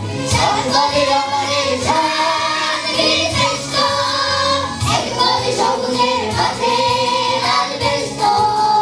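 Children's choir singing a Bengali song in unison over musical accompaniment.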